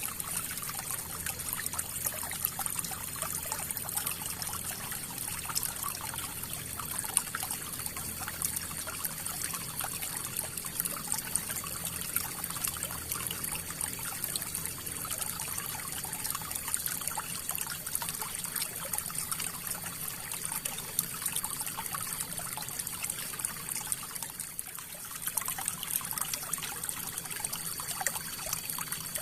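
River water flowing and trickling over stones, a steady splashing babble with many small splashes.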